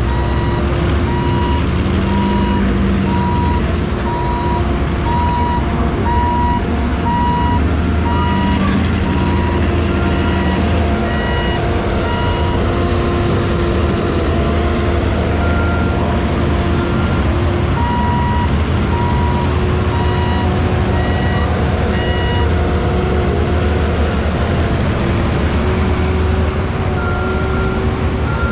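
Vehicle backup alarm beeping steadily, about one and a half beeps a second, over a constant engine drone with a low rumble; the beeps grow fainter through the middle and come back near the end.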